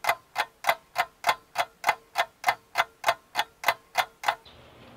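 Clock-ticking sound effect: sharp, even ticks about three a second. It stops abruptly near the end, leaving faint background hiss.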